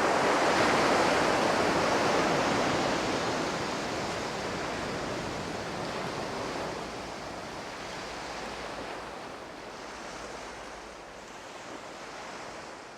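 A steady rushing noise, like surf or wind, loudest at the start and slowly fading out.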